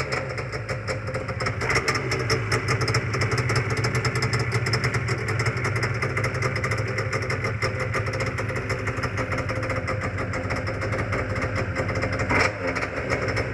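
A vintage stand-up jet ski's brand new two-stroke engine, running on 30:1 premix, idles steadily and fast after being started. It rises briefly near the end.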